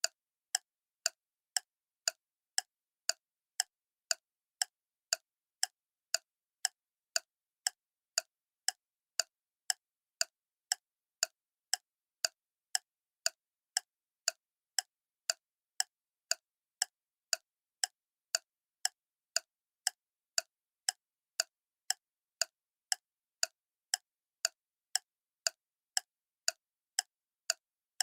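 Clock ticking steadily, about two sharp ticks a second with clean silence between them.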